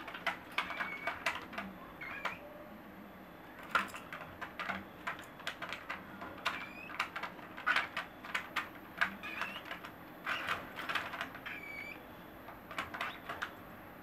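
Baby cockatiels giving short, soft, rising chirps now and then among clusters of quick clicks and taps from beaks and feet on the wire cage bars and perches.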